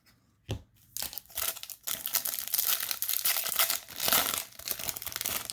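A trading-card pack wrapper being torn open and crinkled in the hands, a dense, uneven crackle lasting about four seconds. It starts with one short knock about half a second in.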